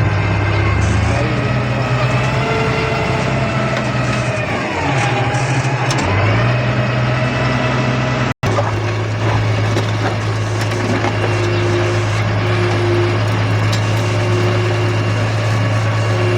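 Heavy road-work vehicle's engine running steadily. Its pitch sags and then climbs back about five seconds in, as if briefly loaded, and the sound breaks off for an instant a little past eight seconds.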